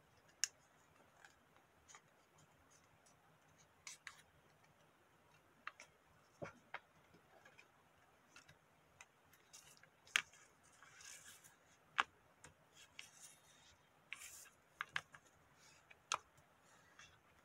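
A small sheet of origami paper handled, folded and creased by fingers on a cutting mat: scattered sharp little taps and clicks with a couple of brief paper rustles.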